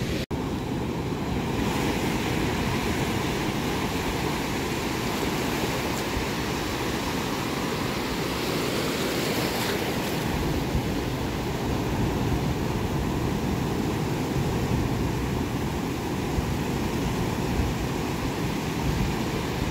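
Pacific Ocean surf breaking and washing up the beach, a steady rush of wave noise, with a brief drop-out just after the start.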